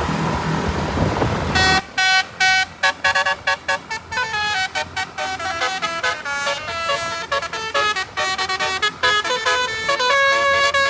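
Traffic and engine noise, then about two seconds in a bus's multi-note telolet air horn starts playing a fast melody of short, stepping toots, several notes sounding together.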